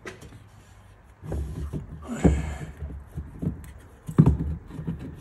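Irregular clunks, knocks and a scrape of a Maserati Mistral propshaft being handled and worked into place under the car, with a sharp knock about four seconds in.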